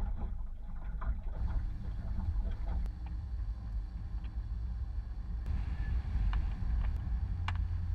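Wind buffeting the microphone on a small boat on choppy water, a steady low rumble, with a few light knocks near the end.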